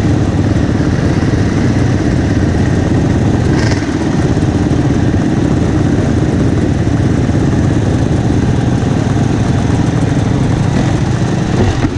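Several enduro dirt bikes idling together with a steady, dense engine sound. The nearest is a Husqvarna FE 350, a 350 cc four-stroke single.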